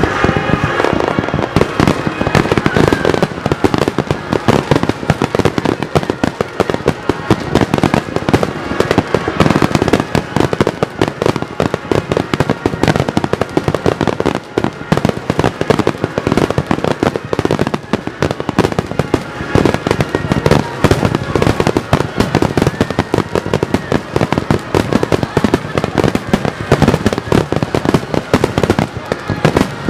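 Dense, continuous barrage of aerial fireworks: many bangs and crackles overlapping in quick succession, with no break.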